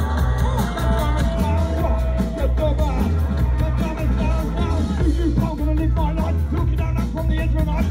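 Live band playing loud music with a singer over heavy bass and a steady drum beat.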